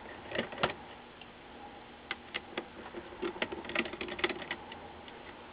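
Faint, scattered small clicks and ticks of a hand screwdriver turning out the screws that hold an LCD monitor's power supply board. There are a couple of single clicks near the start and a quicker run of ticks from about two seconds in.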